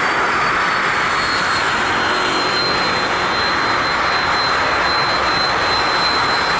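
Jet airliner engines running close by, a loud steady rush with a thin high whine that drifts slightly down in pitch.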